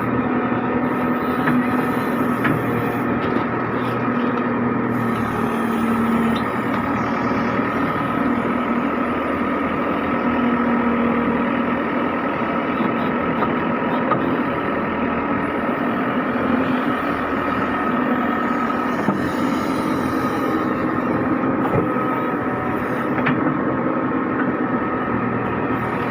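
JCB 3DX backhoe loader's diesel engine running steadily, with a few faint clicks.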